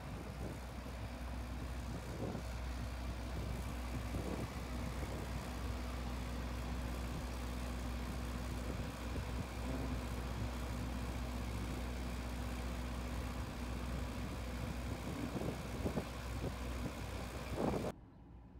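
A vehicle engine idling steadily, with a few short knocks over it; the sound cuts off abruptly near the end.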